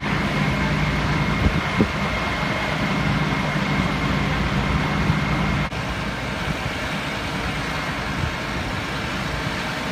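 Fire engine idling with a steady low hum and a faint high whine, broken by a couple of light knocks about a second and a half in. Partway through the sound cuts abruptly to a plainer steady idling hum without the whine.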